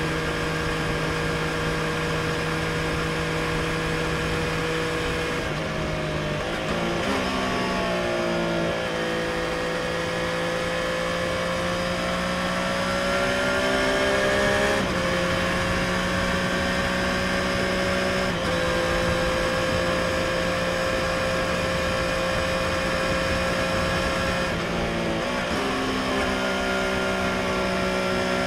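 Triumph Street Triple RS's 765 cc three-cylinder engine through its stock exhaust, heard onboard while riding at road speed. The engine note holds steady, then steps down in pitch and climbs back up a few times as the throttle and revs change.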